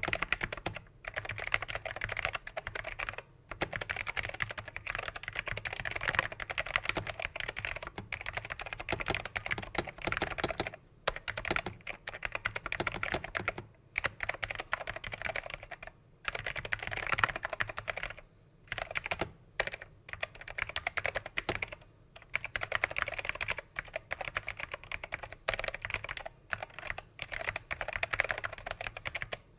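Fast continuous typing on a NeXT keyboard with factory-lubed black Alps (pine) switches: a dense run of key clacks, broken by short pauses every few seconds.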